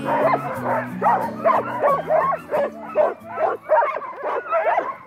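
A harnessed team of sled huskies barking and yelping, several overlapping calls a second: the excited clamour of dogs eager to pull while held at the start. Music with low held notes plays underneath.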